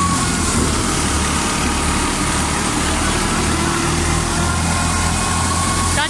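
Wheat thresher running steadily in the field: a loud, unbroken mechanical din with a constant low hum beneath it.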